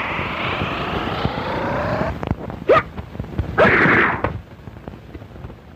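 Sound effects: a rising sweeping tone for about two seconds, then two sudden noisy bursts, each with an upward glide, about three and four seconds in, dying away after.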